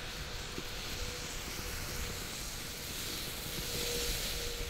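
Ground firework fountain hissing steadily as it sprays sparks; the hiss swells stronger near the end. A low rumble of wind on the microphone lies underneath.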